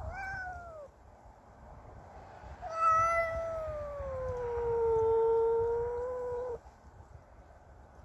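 A house cat yowling. First comes a short call that rises and falls; then, about two seconds later, a long drawn-out yowl of about four seconds that slides down in pitch, holds low, then cuts off. It is the threatening yowl of a cat angry at another cat in its territory.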